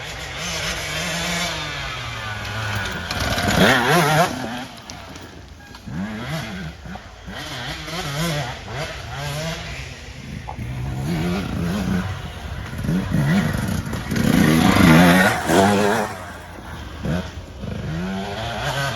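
Engine running hard and revving up and down over and over, with the loudest surges about 4 seconds and 15 seconds in.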